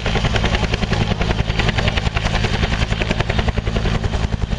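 Agusta Bell AB212 twin-turbine helicopter hovering overhead: a loud, rapid, even beat from its two-bladed main rotor over a steady turbine and gearbox hum.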